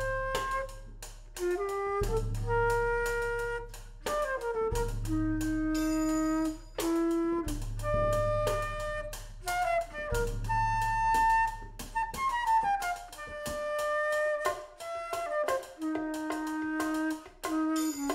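Flute and drum kit playing together live: the flute plays quick falling runs between longer held notes, over steady cymbal and drum strikes.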